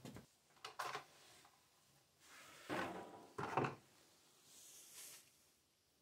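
Several knocks and clunks, like a door or hatch being handled, with the two loudest close together about three seconds in. A soft hiss lasting about half a second follows near the end.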